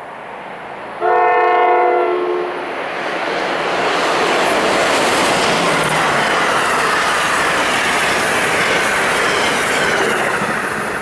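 Amtrak Silver Star passenger train led by an AEM-7 electric locomotive. About a second in, the locomotive sounds one chord-horn blast of about a second and a half. Then comes the loud, steady rush of the train passing at speed, wheels running on the rails.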